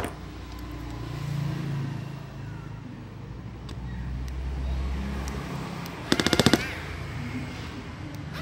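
Powered screwdriver driving screws into a cordless drill's plastic housing: a low motor hum, then about half a second of rapid clicking, about a dozen clicks a second, six seconds in and again at the end, as the clutch slips on a tightened screw.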